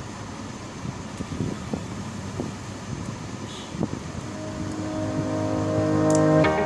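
A rough, even rushing noise with a few faint clicks, then background music with held notes fading in and growing louder over the last couple of seconds.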